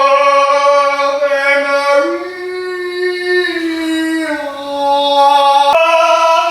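A person singing long held notes in an echoing, nearly empty room: one note, a step higher about two seconds in, then back down, with a sharp click near the end.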